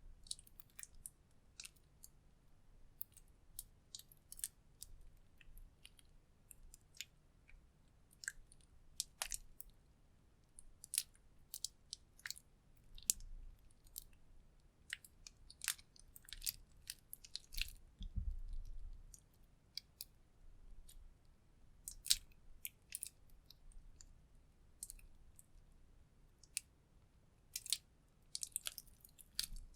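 Clear slime mixed with lipstick being kneaded and stretched by hand: irregular sticky clicks and small pops, with a couple of soft low thuds as it is pressed.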